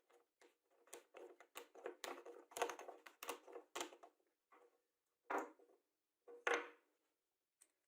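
Handling noise on a workbench: a quick, irregular run of light clicks and knocks, then two louder scraping strokes about a second apart near the end.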